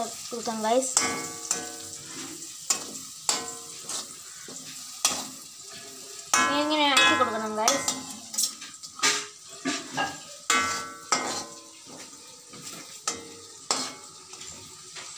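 A metal slotted spoon scraping and clattering against an aluminium kadai as chili-coated papadam pieces are stirred in hot oil, with a faint sizzle underneath. A brief voice-like sound cuts in about halfway.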